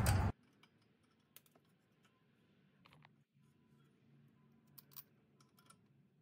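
Near silence with a faint low hum and a handful of faint, scattered clicks.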